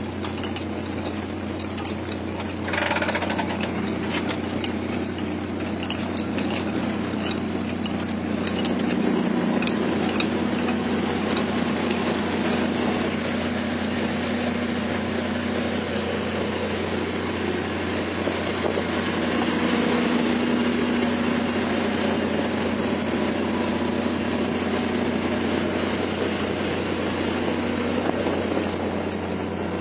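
Squid-fishing boat's engines and jigging machinery running with a steady low drone, with scattered clicks and rattles from about three to twelve seconds in.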